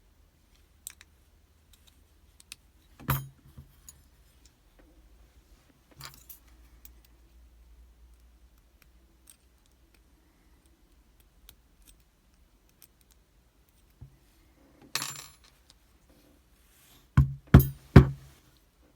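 Small metal clicks and knocks from a pin-tumbler challenge lock being taken apart to free a stuck pin: a few scattered clicks, then three sharp knocks in quick succession near the end.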